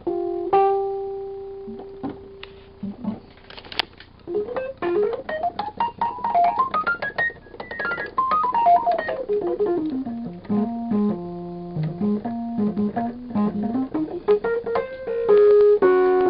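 1972 Fender Rhodes Mark I electric piano being played: a held note, then a quick run of single notes climbing up the keyboard and back down, rising again and ending on a chord.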